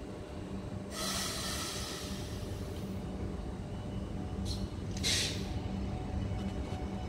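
High Capacity Metro Train, an electric suburban train, moving slowly: a steady low rumble and hum. A hiss comes in about a second in and lasts about two seconds, and two shorter hisses follow near the five-second mark.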